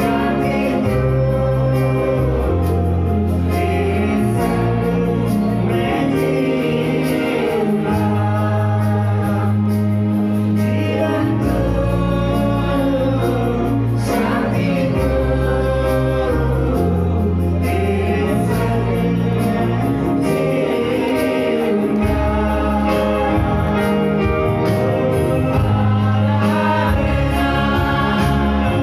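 A choir of mixed voices singing a Hindi Christian worship song live, with keyboard accompaniment holding sustained low chords, heard through the hall's PA speakers.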